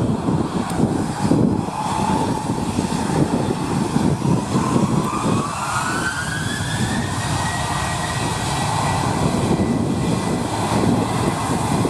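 Jet airliner engines running over a loud low rumble, with a whine that rises in pitch from about four seconds in and then holds steady.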